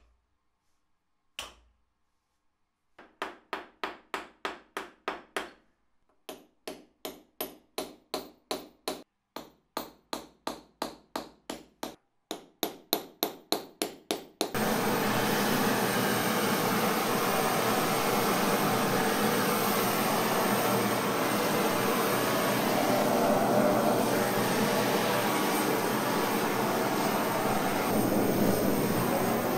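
A hammer tapping a chasing punch into sheet metal set in pitch, in runs of ringing strikes about three a second with brief pauses between runs. About halfway through this gives way to the steady noise of a gas torch's flame playing over the metal on the pitch.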